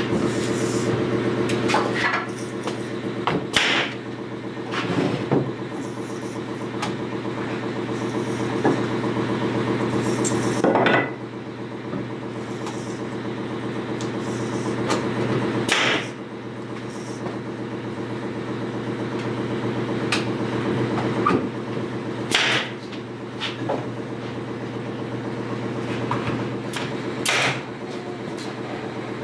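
Air compressor running with a steady hum while a pneumatic nail gun fires sharp shots a few seconds apart, nailing together a wooden frame.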